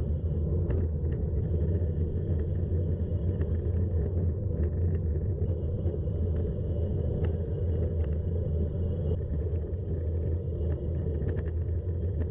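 Steady wind rumble on the microphone and tyre noise from a gravel bike being ridden over loose gravel and sand, with scattered small clicks and rattles.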